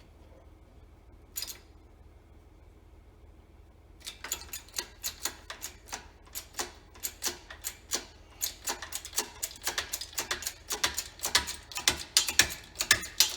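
A run of sharp metallic clicks, about three a second and getting louder, as tools work to push the shaft out of a tractor water pump housing; a single click comes about a second in, and the steady clicking starts about four seconds in.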